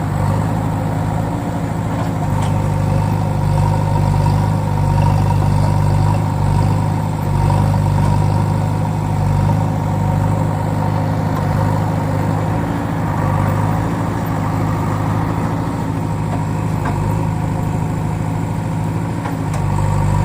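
Excavator engine running steadily at an even pitch, with small swells in level.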